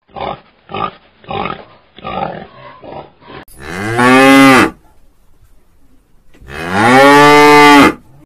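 A run of about six short grunts, roughly two a second, from a warthog feeding on the ground, then two long, loud cow moos, each falling in pitch at its end, the second near the end.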